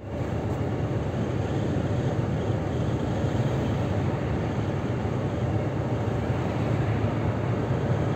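Steady road and engine noise of a car driving along, heard from inside the cabin, with a constant low hum.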